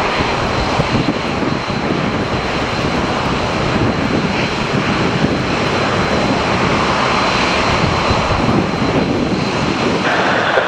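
Heavy rain pattering on an umbrella and wind buffeting the microphone, a constant crackling hiss. Under it runs the jet noise of an Airbus A320-family airliner on final approach.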